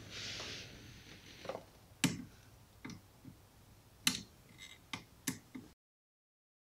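A few faint, sharp plastic clicks and knocks, the three clearest about a second or two apart, as the seat's wiring harness connectors (airbag and heated-seat cable) are unplugged under a car's passenger seat.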